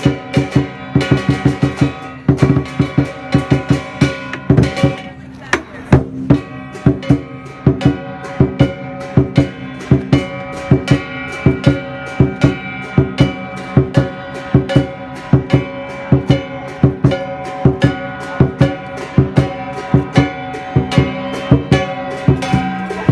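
Music with a steady, fast drum beat under held melodic notes.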